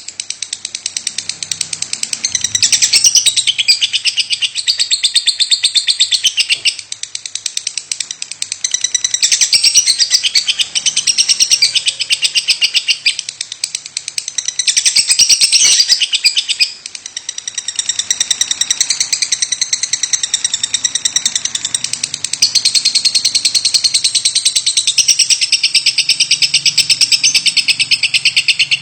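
Lovebird calling without pause: a fast, unbroken string of short, high-pitched chattering notes, the call its keeper calls 'batuk' (coughing). It swells louder and eases back every few seconds.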